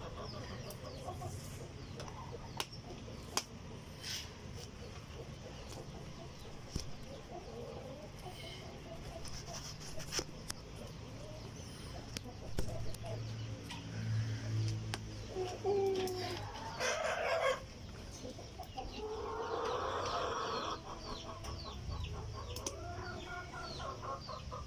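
Chickens clucking, with a rooster crowing and scattered light knocks.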